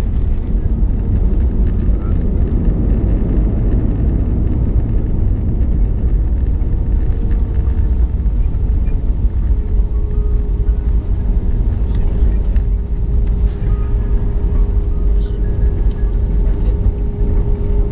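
Airbus A320 cabin noise during the landing rollout, just after touchdown: a loud, steady low rumble of the jet engines and the wheels on the runway, easing a little after the first few seconds, with a steady hum tone running through it.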